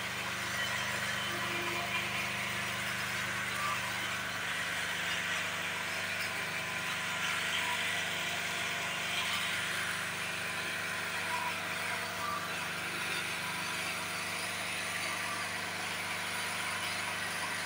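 An engine running steadily with a constant low hum under a hiss; the hum shifts slightly about four seconds in.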